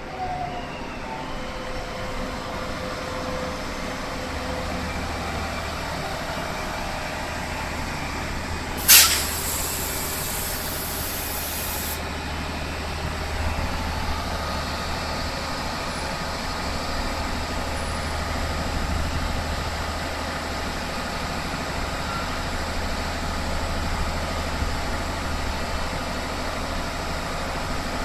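Three-car diesel multiple-unit passenger train pulling into a station platform and running past at low speed, with a steady low rumble from its engines and wheels. About nine seconds in, a sudden loud burst of air hiss lasts about three seconds.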